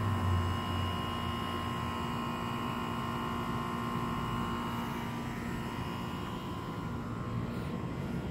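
A steady low mechanical hum with a few faint steady tones over it.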